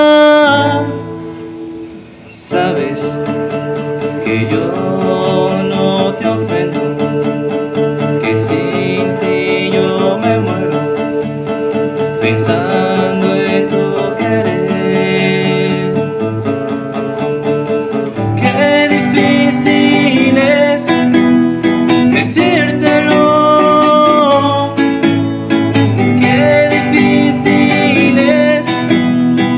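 A man singing a love song while accompanying himself on an acoustic guitar. A held sung note ends about a second in and the guitar carries on, and the music gets louder and fuller about two-thirds of the way through.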